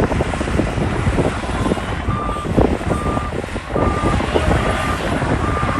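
Heavy earthmoving machinery with a loud, rough diesel rumble. From about two seconds in, a reversing alarm beeps steadily a little faster than once a second as a machine backs up.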